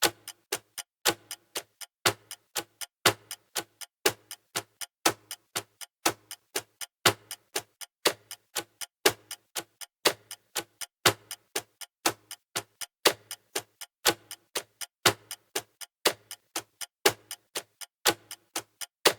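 Clocks ticking steadily: several sharp ticks a second, with a louder tick about once a second.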